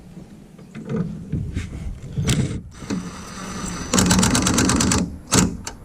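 A socket ratchet with a 10mm socket clicking rapidly for about a second as the taillight mounting bolts are tightened. A few separate knocks and clicks come before and after.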